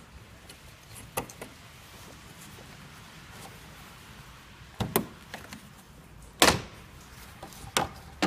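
Plastic engine-bay side trim panel being worked loose and lifted out: several separate sharp plastic knocks and snaps as it comes free, the loudest about two-thirds of the way through.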